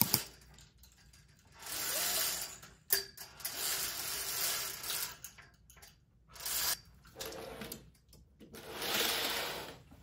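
Curtains being drawn open along their rail in about four separate pulls, each a sliding swish lasting about a second, with a sharp click about three seconds in.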